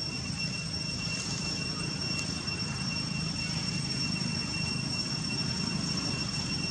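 Steady low rumble, like distant engine or traffic noise, with a thin constant high-pitched whine.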